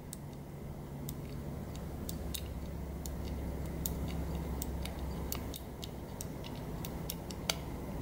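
Small detent clicks of the brass number wheels on a three-wheel Master combination padlock being turned one number at a time, a string of irregular clicks about two a second. The wheels are being stepped through their numbers to feel which one gives under shackle tension, the way the forgotten code is found.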